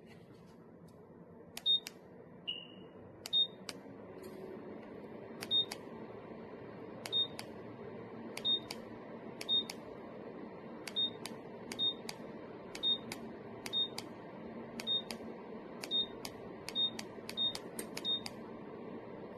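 Electronic beeps from a DREO ceramic space heater's controls as its buttons are pressed one after another, about fifteen times, each a click with a short high beep, plus one lower beep near the start. Under them runs a steady fan-like hum that swells over the first few seconds.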